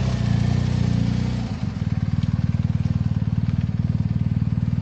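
Motorcycle engine idling close by with a steady low throb; about a second and a half in the note drops and settles into an even, pulsing idle.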